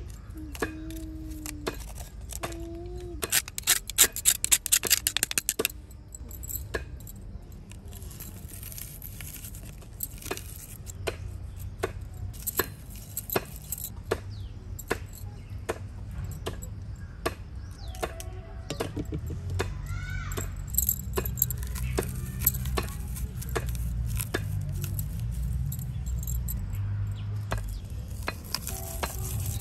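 Hand food preparation: scattered knife taps and scrapes, with a loud burst of rapid clicking and rattling about four seconds in. In the second half comes a steady low rubbing as garlic is crushed on a metal grater.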